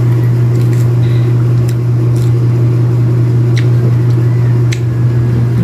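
A loud, steady low hum, with a few scattered faint clicks as a pomelo is peeled apart by hand.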